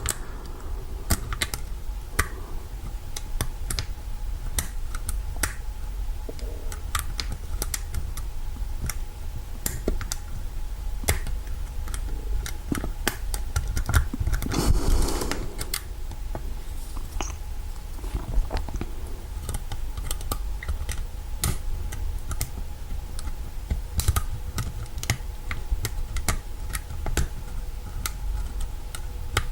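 Irregular small metallic clicks and taps as a seized Kwikset knob lock is handled and worked with picking tools, with a brief hiss about halfway through.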